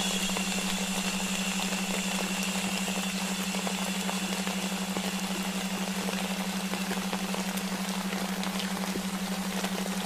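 Layered sleep soundscape: a steady rain-like white-noise hiss under the low drone of a delta-wave tone. A higher hiss swells in at the start and fades over the next few seconds.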